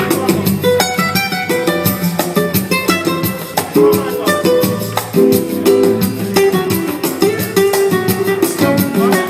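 Flamenco guitar music, strummed, with many sharp percussive accents.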